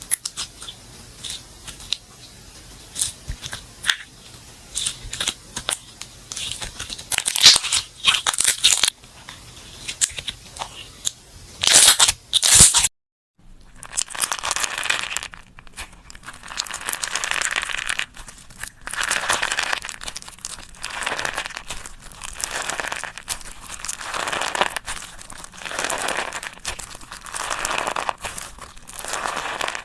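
Slime being handled, pressed and stretched, with sticky crackling and popping. After a brief cut about 13 seconds in, it settles into repeated squishing swells every second or so.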